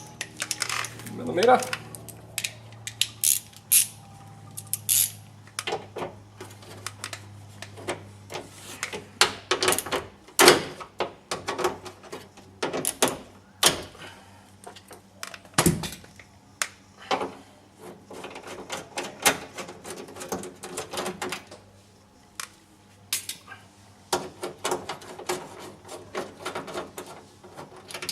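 Ratchet wrench with a 10 mm socket clicking in short runs as bolts are undone, with scattered sharp knocks and clinks of tools and parts.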